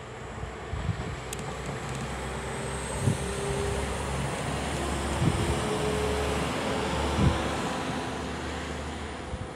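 Modern passenger multiple-unit train passing close by, its running rumble swelling and then easing as it goes away, with a faint steady whine in the middle. A few heavy thumps come about two seconds apart.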